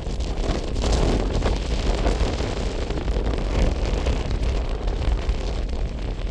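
Strong dust-storm wind gusting across the microphone: a continuous rushing noise with heavy low buffeting that rises and falls from gust to gust.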